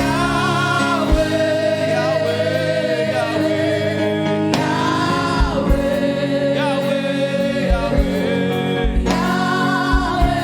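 Gospel praise-and-worship music: voices singing long held notes over steady backing chords, with low thumps marking the beat.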